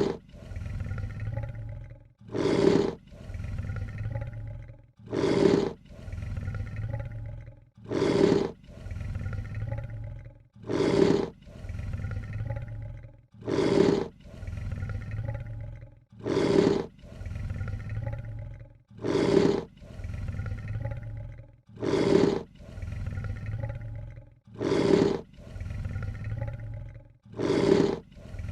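Lion hiss, the same call looped over and over about every two and a half to three seconds: each time a short, loud, harsh hiss, then a longer, quieter, lower rumble.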